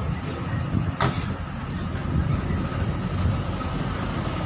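Steady low rumble of a shuttle tram running, heard from aboard, with one sharp click about a second in.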